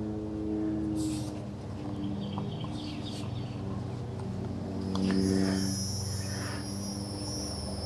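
A steady low mechanical hum with evenly spaced pitches. About five seconds in, a steady high insect buzz joins it.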